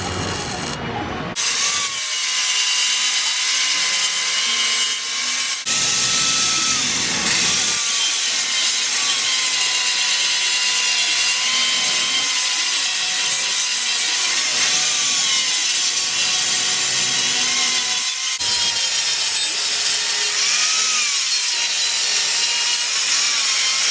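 Angle grinder working steel tubing: a steady grinding hiss with a motor whine that sags and recovers as the disc is pressed into the metal, broken briefly a few times.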